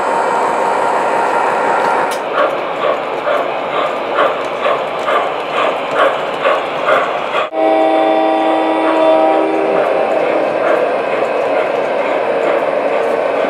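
Model trains running on the layout track with a steady rumble. From about two seconds in comes rhythmic chuffing, about twice a second, from a steam locomotive's sound system. After a sudden break, a several-note horn blast sounds for about two seconds, then the running noise carries on.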